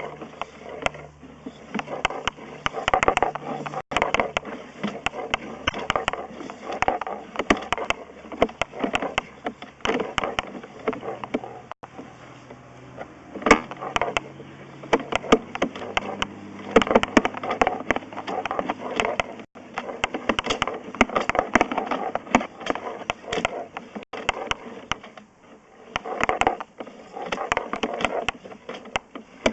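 Sewer inspection camera being pushed down a 3-inch ABS drain line: its push cable and camera head clatter and click irregularly as they slide and knock along the pipe, over a faint steady hum.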